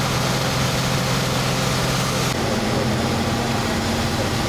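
Fire engine running at the scene with its pump supplying the hose, a steady engine hum. Its low tone steps up in pitch about two seconds in.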